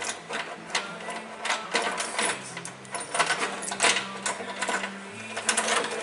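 Kawasaki FD620D V-twin engine of a John Deere 6X4 Gator being cranked by its electric starter with the valve covers off, a rapid, uneven mechanical clatter. It turns over without firing, the crank-no-start fault being diagnosed.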